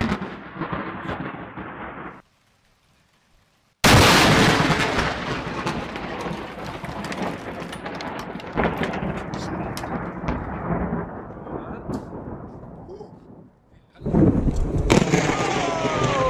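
A close thunderclap that bursts in suddenly about four seconds in and rumbles away slowly over some ten seconds. Storm noise comes before it, and a new sharp crack of thunder comes near the end.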